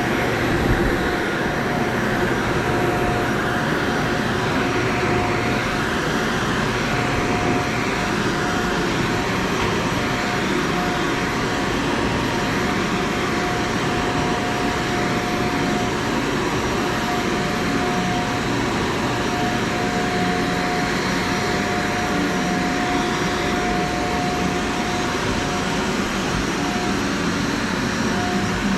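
Shark Vertex upright vacuum cleaner running steadily on carpet: a constant motor whine over a rushing air noise.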